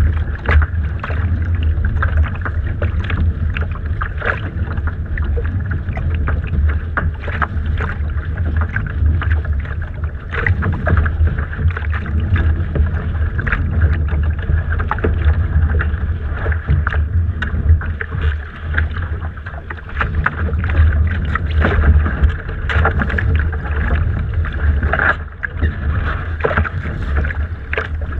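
Water slapping and splashing against a Laser dinghy's hull, with many small sharp knocks and clicks. A steady low rumble of wind buffets the deck-mounted camera's microphone.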